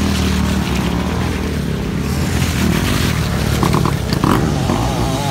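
Motocross dirt bike engines running and revving on a muddy track. The steady engine hum gives way to rougher revving that rises and falls near the end.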